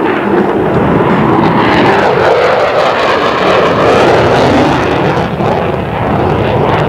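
Loud, steady jet noise from an F-14B Tomcat's twin General Electric F110 turbofans as the fighter flies its display overhead, swelling a little midway.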